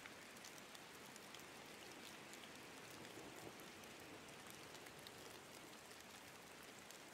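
Faint steady rain: a soft even hiss with scattered tiny drop ticks.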